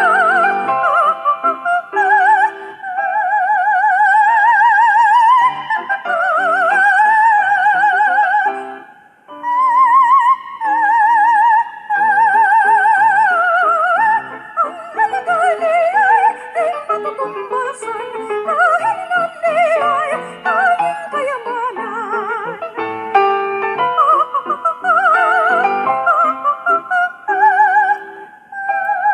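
Recorded music: a soprano voice singing a Filipino song in operatic style, the melody held in long notes with wide vibrato over instrumental accompaniment.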